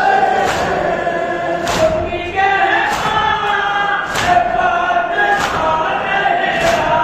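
Men chanting a Shia noha (lament) in unison, with the crowd's matam, a collective hand-on-chest beat, striking together about once every second and a quarter.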